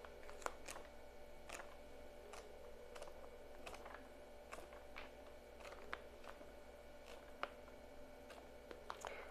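Faint, scattered soft flicks and rustles of glossy paper catalog pages being turned by hand, roughly one a second, over a low steady room hum.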